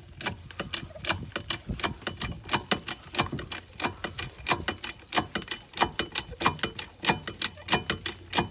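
Rapid, irregular clicking, about five clicks a second, from a bottle jack being worked to raise a mobile home about a millimetre.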